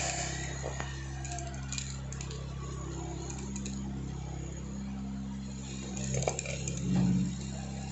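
Vibratory bowl feeder buzzing steadily with a low electric hum while small capacitors click and jingle along its track, with a couple of louder rattles near the end.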